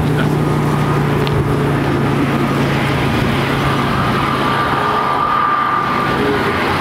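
Jet engines of an Airbus A320neo-family airliner running at taxi power as it rolls along the taxiway: a steady rumble with a constant low hum, and a high whine that comes up about halfway through.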